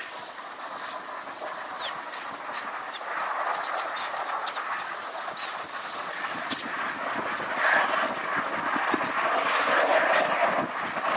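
Jet noise from an Airbus A330-300's two Rolls-Royce Trent 700 turbofans on final approach: a steady rumble that grows louder as the airliner comes nearer.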